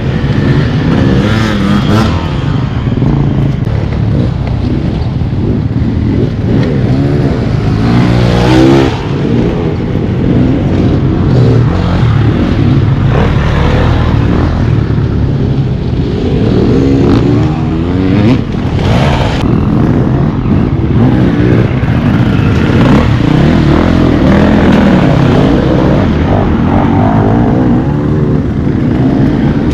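Two-stroke Beta enduro dirt bike engine being ridden hard, revving up and down repeatedly as the throttle opens and closes.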